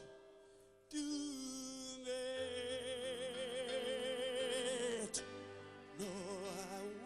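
Background music with a singer holding long notes with vibrato over sustained accompaniment.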